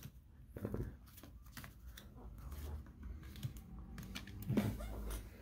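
Baseball trading cards being flipped through and slid against each other in the hands, small light clicks and rustles of the card stock.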